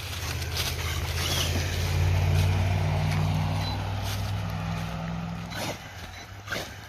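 A low, steady motor hum that swells and then fades out after about five and a half seconds, with a few scattered clicks.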